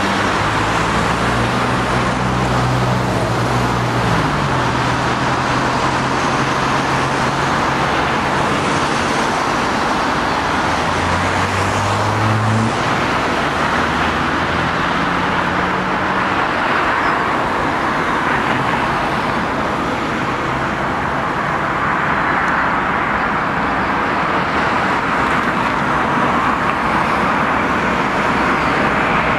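Steady road traffic noise, with a nearby vehicle's engine note in the first half that drops in pitch about four seconds in and fades out after about sixteen seconds.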